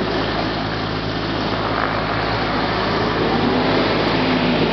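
Mil Mi-8-family twin-turbine transport helicopter running its engines and rotors at high power as it lifts off, a loud, steady machine noise.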